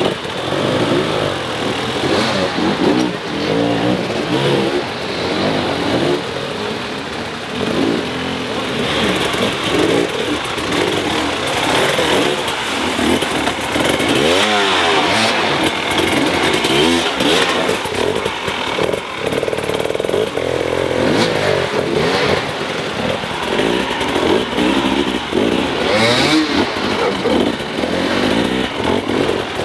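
Hard enduro dirt bike engines revving, the pitch rising and falling again and again as the throttle is worked, with more than one engine heard at times.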